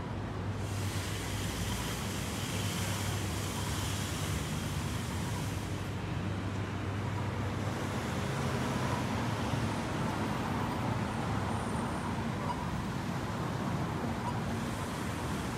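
Road traffic on a city street: a steady low engine rumble, with the rush of a vehicle passing in the first few seconds.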